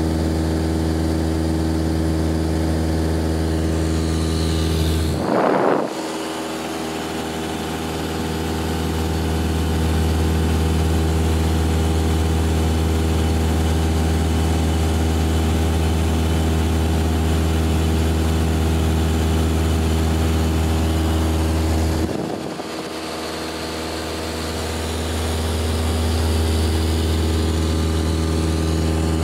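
Single-engine Cessna's piston engine and propeller droning steadily, heard inside the cabin. Twice, about five seconds in and again about 22 seconds in, the deep part of the drone drops out suddenly and builds back over a few seconds.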